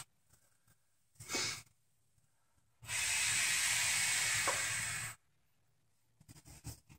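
Large female Burmese python hissing defensively while guarding her clutch of eggs: a short hiss about a second in, then one long hiss of about two and a half seconds.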